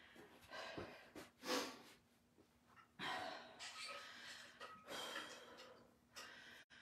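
A woman breathing hard in a few separate noisy breaths, winded after a round of kettlebell swings.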